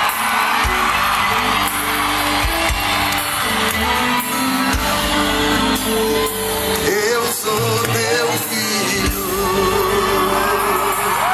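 Live gospel song: a man singing into a handheld microphone over amplified instrumental backing, holding long wavering notes in the second half.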